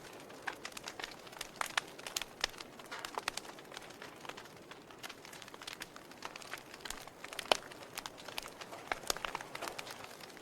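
Fire in a fireplace crackling, with irregular sharp pops and snaps over a soft steady hiss; one louder pop comes about two-thirds of the way through.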